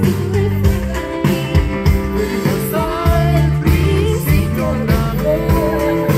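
Live band music with electric guitar, bass and drums keeping a steady beat, and a woman singing a wavering melody over it.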